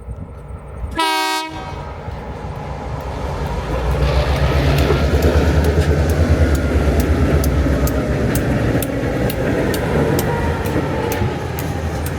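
A short single toot of a diesel locomotive horn, then the EMD 645 engines of Tasrail 2050 class locomotives on a loaded coal train growing loud as the train passes close, with a steady run of sharp clicks from wheels over the rail joints.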